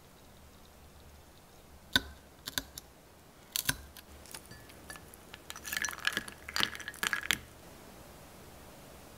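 Dalgona-making sounds: a few sharp clinks of a steel dalgona press and tray in the first half, then a denser run of small cracks and taps for about two seconds as a needle picks the hardened honeycomb toffee apart on a plate.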